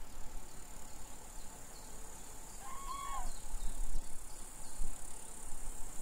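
Steady high-pitched chirring of insects such as crickets, over uneven low rumbling. About halfway through comes a single short bird call, a flat note that drops off at the end.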